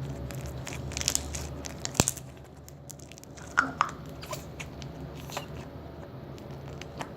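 Slime being squeezed and poked by hand, giving scattered small clicks and crackles. There is a cluster around one to two seconds in and another around three and a half seconds in.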